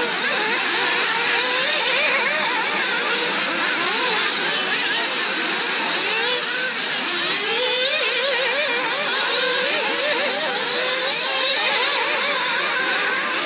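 A pack of nitro-powered radio-controlled cars racing, their small two-stroke glow engines making a high-pitched buzz whose pitch keeps rising and falling as each car accelerates and brakes.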